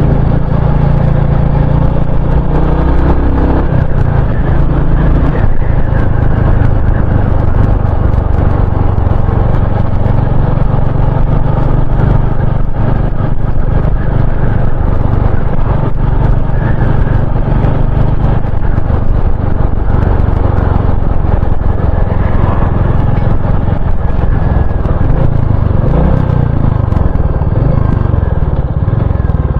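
Royal Enfield Continental GT 650 parallel-twin engine running while the motorcycle is ridden, under a steady rush of wind and road noise; the revs rise and fall a few times near the end.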